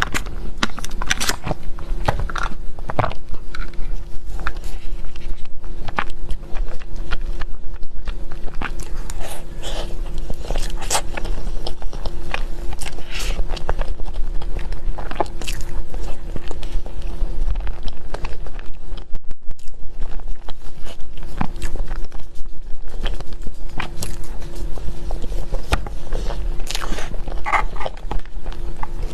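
Close-miked eating of a mille-crêpe cake: a person biting and chewing, with many short sharp mouth clicks throughout, over a steady low hum.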